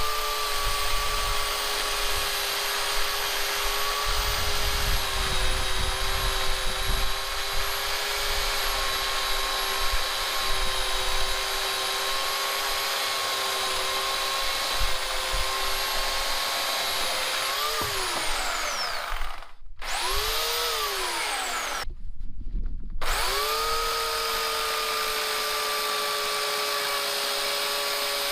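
Bauer 14.5-amp corded electric chainsaw running, its motor holding a steady pitch while it cuts through wood. About two-thirds of the way in it revs up and winds down to a stop. It is briefly started and stopped again, then starts up and runs steadily.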